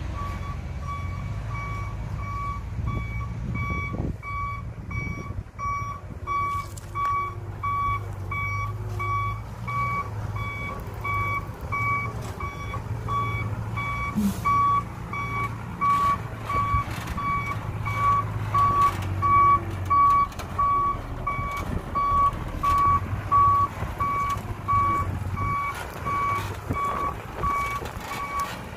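Loaded dump truck's reverse alarm beeping steadily, about two beeps a second, over the low running of the truck's diesel engine as it backs up.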